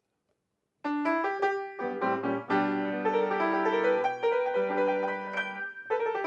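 A piano starts about a second in after near silence, playing struck chords and a melody that ring on.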